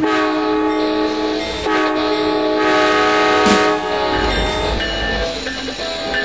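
Amtrak GE P42DC locomotive's air horn sounding a multi-note chord in two long blasts, the second ending about three and a half seconds in. After that the horn chord is weaker, over the low rumble of the train.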